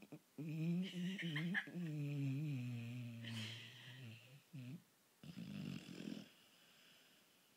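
Sleeping dog snoring: a long drawn snore whose pitch sinks as it goes, a short one after it, then a breathy, rasping breath about five seconds in, before it falls quiet.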